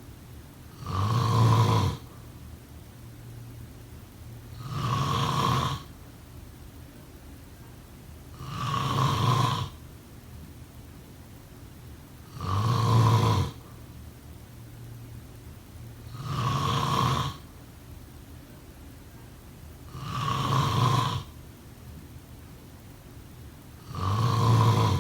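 A person snoring steadily and slowly, seven low buzzing snores about one every four seconds, each lasting about a second.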